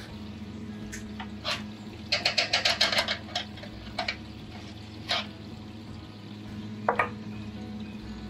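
Brewing equipment being handled: several separate clinks and knocks from the stainless kettle and transfer hose fittings, with a quick rattling run of about ten clicks around two to three seconds in, over a steady low hum.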